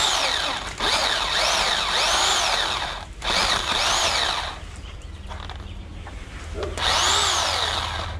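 Electric pole saw's chain running and cutting into a tree limb in several runs, its whine swooping up and down in pitch as the chain bites into the wood. It eases off for about two seconds past the middle, then picks up again near the end.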